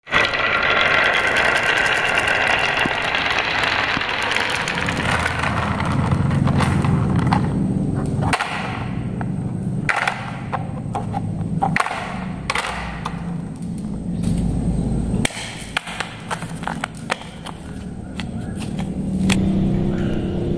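Balls clattering down a wooden zigzag marble run, a dense rattle for the first few seconds. Then come scattered knocks and clicks as the wooden track and a plastic toy truck are handled, over a low steady rumble.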